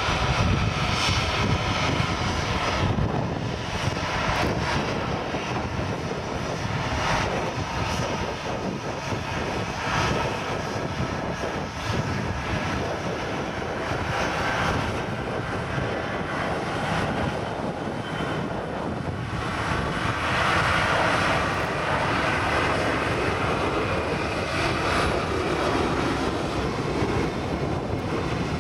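Airliner jet engines running at taxi thrust: a steady rumble with a whine, from the Airbus A330-243's Rolls-Royce Trent 700 engines as it moves away. The whine grows stronger about twenty seconds in, as a second jet, a KLM Boeing 737, taxis in close.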